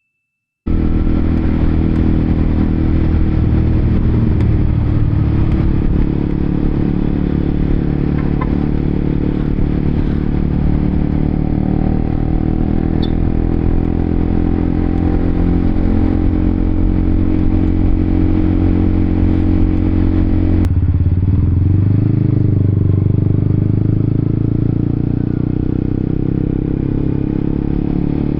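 Honda CBR sport motorcycle's engine running as it is ridden, a steady drone with small rises and falls in pitch over road and wind noise. The sound cuts in abruptly at the start, and about 21 seconds in its tone changes suddenly.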